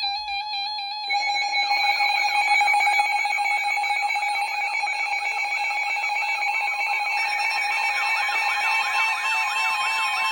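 Several electronic alert tones sounding at once in a fast pulsing pattern. More tones pile on about a second in, and a warbling, siren-like tone joins about seven seconds in.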